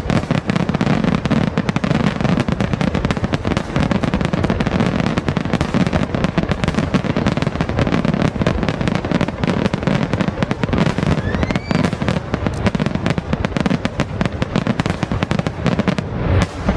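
Aerial fireworks going off in a continuous barrage, with dense rapid bangs and crackling shell bursts following one another without a break. A faint rising whistle is heard about two-thirds of the way through.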